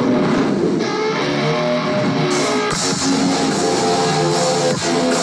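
Guitar music from a music video playing through a Vu 65-inch Android TV's built-in speakers set to Theater sound mode. The treble grows brighter about two seconds in.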